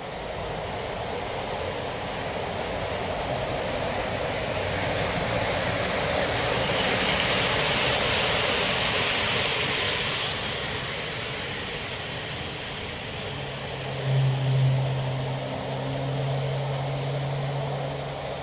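Model railway trains running on the layout: the rumble and hiss of wheels on track grows as a rake of coaches passes close at speed about seven seconds in, then eases off. A low steady hum comes in near the end.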